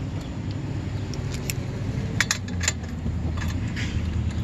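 Sharp metallic clinks as a snowmobile's secondary clutch is handled and fitted onto its shaft: one about a second and a half in, then a quick cluster around two seconds in. A steady low hum runs underneath.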